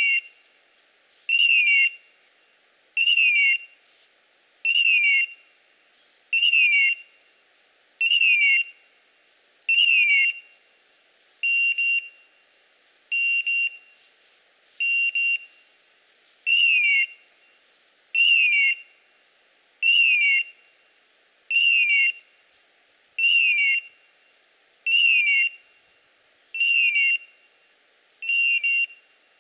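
Electronic beeper collar on a hunting dog sounding in point mode: a short electronic beep with a falling pitch, repeated evenly about every 1.7 seconds. The steady repetition signals that the dog is standing still on point.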